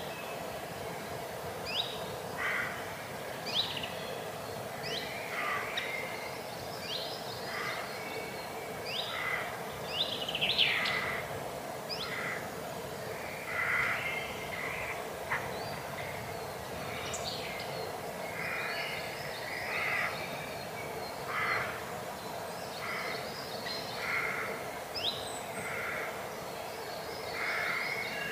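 Spring forest birdsong: many short, rising chirps from small birds mixed with repeated harsh cawing calls of a corvid, over a steady low background hum.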